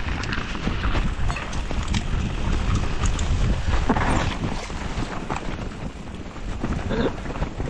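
Mountain bike descending a wet, rough trail: wind buffeting the camera microphone as a steady low rumble, with rattling and clattering from the bike and tyres over the ground.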